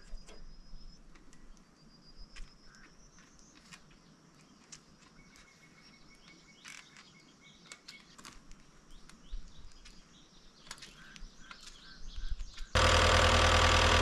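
Faint bird calls and a few small clicks over quiet outdoor air. Near the end a Caterpillar skid steer's diesel engine comes in suddenly, running steadily and much louder than anything before it.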